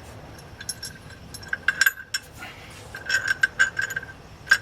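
Light, irregular metal clinks with a ringing note, from a socket, extension and long bolt knocking together as the clutch-to-crankshaft bolt is worked out through the access hole.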